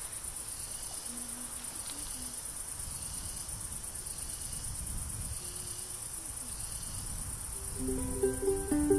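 Night chorus of crickets: a steady, high, fast-pulsing trill over a low rumble. Plucked ukulele music comes in near the end.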